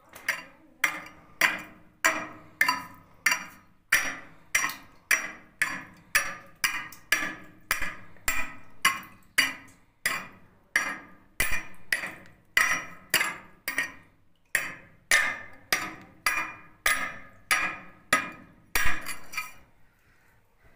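A steel hand tool chipping quartz out of a seam in a rock wall: sharp, ringing strikes about twice a second, kept up steadily and stopping shortly before the end.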